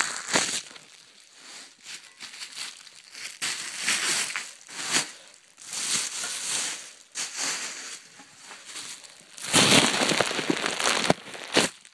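Packaging crinkling and rustling as a new BMX frame is unwrapped, in irregular bursts, the loudest and longest stretch about two seconds before the end.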